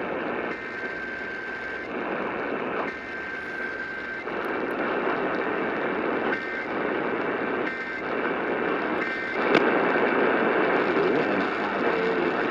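Radio static hiss from a weakly received station, with faint high beeping tones coming and going in it and a sharp click about nine and a half seconds in.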